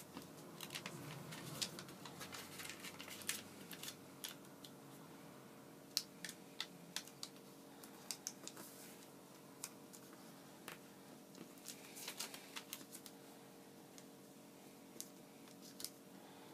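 Faint crisp taps, clicks and rustles of origami paper being folded and pressed flat by hand on a tabletop, coming in uneven bunches, over a faint steady hum.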